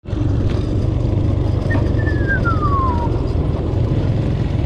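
Motorcycle engine running at a steady cruising pace while riding along a cobbled road. A single falling whistle is heard about two seconds in.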